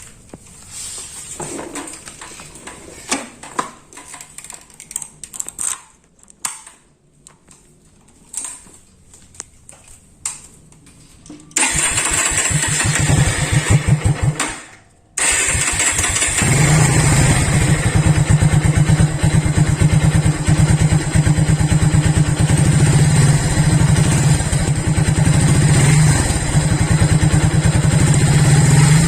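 A few faint clicks, then the Kawasaki W175's single-cylinder engine is turned over on its electric starter motor. The first try runs briefly and dies away. A second try about three seconds later catches, and the engine settles into a steady idle.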